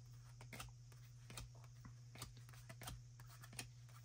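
Faint, scattered clicks and rustles of trading cards being handled and flipped through, over a low steady hum.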